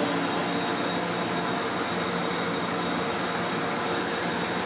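Steady rumble and hiss of a Metrolink passenger train heard from inside the coach, with a faint high-pitched whine that comes and goes.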